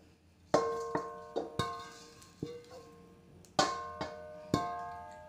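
Metal wok knocked against the rim of a clay mortar to empty out toasted sesame seeds: about eight sharp knocks, each leaving the wok ringing and fading away.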